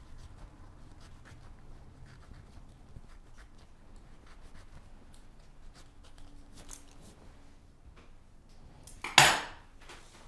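Small knife paring the peel off a lemon: faint scraping and small clicks, then a single louder knock about nine seconds in.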